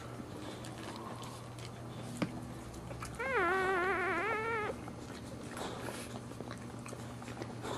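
A newborn boxer puppy crying once, a high wavering squeal lasting about a second and a half a few seconds in, as its mother licks it.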